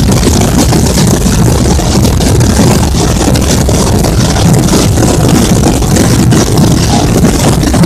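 Massed Holy Week drums and bass drums (tambores and bombos), hundreds playing a roll together, making one loud, dense, unbroken rumble.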